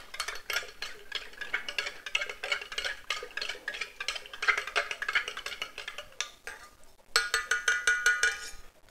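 Sangria being stirred in a pitcher with a spoon that clinks rapidly and irregularly against the sides. About seven seconds in, the clinking gives way to a steady buzzing tone lasting about a second and a half.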